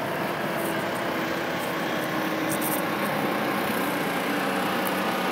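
Steady engine noise with a faint held hum, even throughout.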